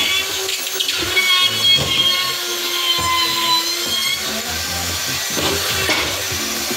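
Cordless drill driving screws into ceiling drywall, its motor whining in short runs.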